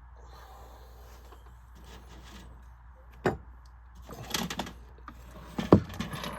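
Parts of a window fan being handled during disassembly: a sharp knock about three seconds in, a short clatter, then a louder knock near the end.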